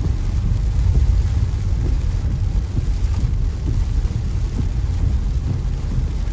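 Steady low rumble of storm wind buffeting the microphone, with faint rain, during a tropical storm's outer bands.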